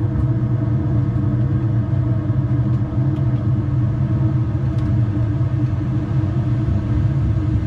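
ATR 72-600 flight simulator's engine sound during the takeoff roll, with both turboprops at takeoff power: a loud, steady propeller drone over a low rumble.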